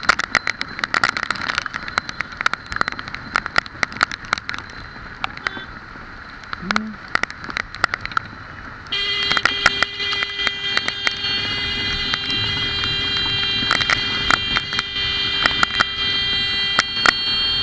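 Raindrops ticking sharply and irregularly on the helmet-mounted action camera over a steady hiss of wet-road traffic. About nine seconds in, a steady high-pitched buzzing tone starts and holds.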